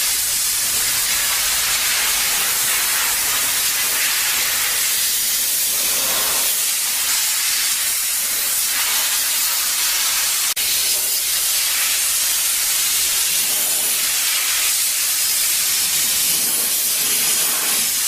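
Steam vapor cleaning system spraying steam, a steady high hiss that swells slightly now and then.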